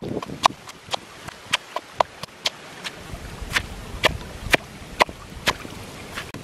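Wooden pestle pounding shredded green mango and chilli in a mortar: a steady run of knocks, about two a second.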